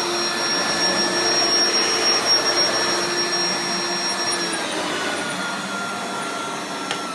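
1994 Hoover Turbopower 2 Autosense upright vacuum cleaner with an 800 W motor running with a steady whine. In the second half its pitch drops and it grows gradually quieter as the motor slows. The machine has been refurbished with new agitator bearings.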